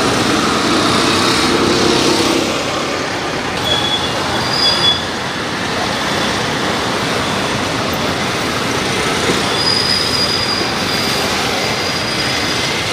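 Steady street traffic noise, with a few brief high-pitched squeals.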